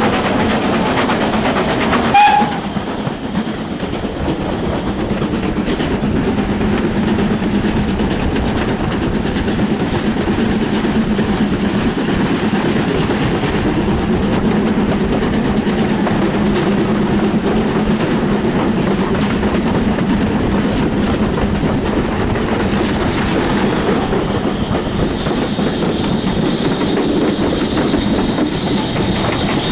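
BR Standard Class 4 steam tank locomotive 80002 and its train running, heard from a carriage window just behind the engine: a steady rumble of wheels on rail mixed with rushing air. There is a sharp knock about two seconds in, after which the sound drops a little as the train comes out of a tunnel.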